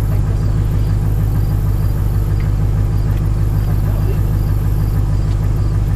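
Pickup truck engine idling, a steady low rumble.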